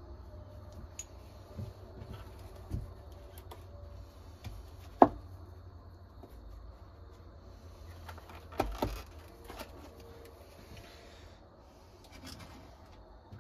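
Workbench handling sounds from leather sheath making: scattered light knocks and rubbing, with one sharp knock about five seconds in and a couple more close together near nine seconds.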